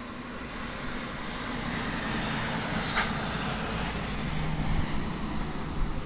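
Typhoon wind gusting through the trees, a rushing noise that swells to a loud, hissing peak about two to three seconds in and then eases, with a low steady hum underneath near the end.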